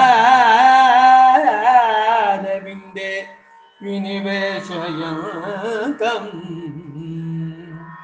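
A male voice singing a slow, heavily ornamented Carnatic-style devotional melody on held vowels, with a short break about three seconds in, over steady held instrumental tones.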